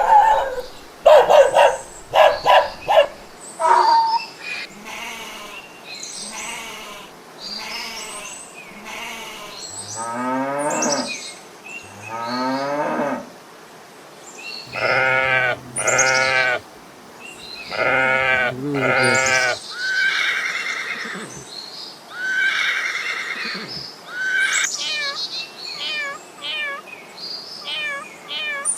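Farm animals calling one after another: a string of different pitched cries and bleats with short pauses between them, ending in a run of quick high chirps.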